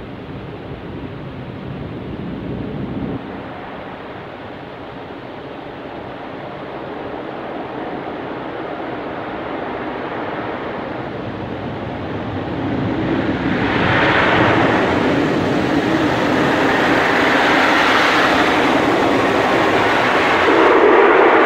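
Kärcher automatic car wash heard from inside the car's cabin: water spraying against the glass and body while the wash machinery runs. It grows louder about 13 seconds in as the spray covers the windscreen, and is loudest near the end as a rotating wash brush reaches the side of the car.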